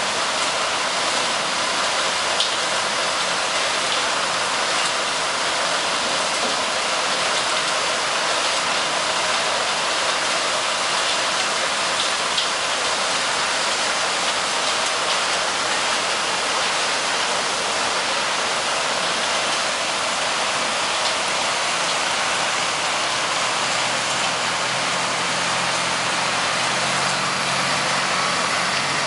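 Wood chips pouring steadily from an overhead chute into a chip truck's trailer, an even rain-like hiss. Toward the end a wheel loader's engine hum joins in underneath.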